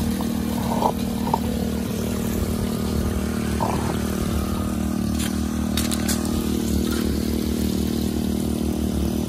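Small engine running steadily, with water pouring and trickling through a highbanker sluice box over its riffle mats.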